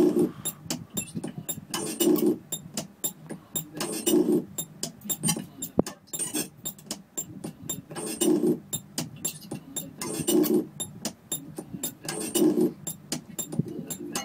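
Electronic music played on a DJ setup of a CD deck and effects pad: a run of rapid, crisp ticks with a short low chord stab about every two seconds, one of them missing about six seconds in.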